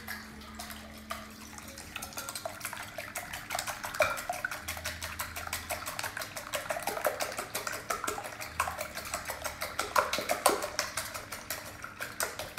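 Fork beating raw eggs in a ceramic bowl: a fast, steady run of clicks as the fork strikes the bowl's side, light at first and then quicker and denser from about two seconds in.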